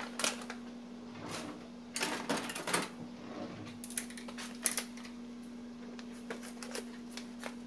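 Plastic bag of pink Himalayan salt crinkling and rustling in the hands, in irregular crackly bursts, over a steady low hum.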